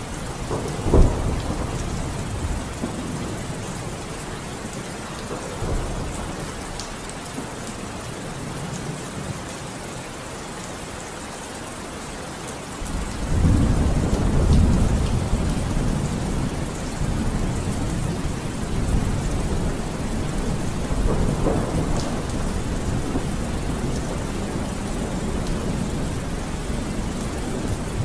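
Steady rain with rolls of low thunder, a sharp one about a second in and a long rumble starting about halfway through.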